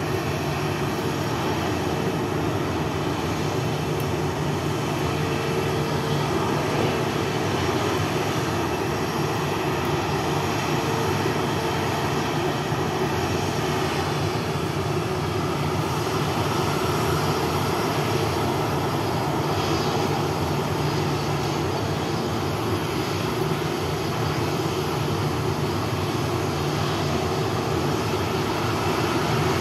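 Jet airliner engines running steadily: a constant low hum under a wide, even hiss that does not change.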